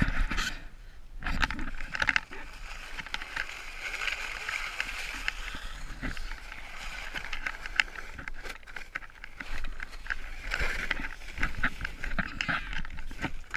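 Footsteps in sneakers on a wet, slushy sidewalk, with the continual scraping swish of an inflatable snow tube being dragged over the snow. Short crunching clicks sound through it.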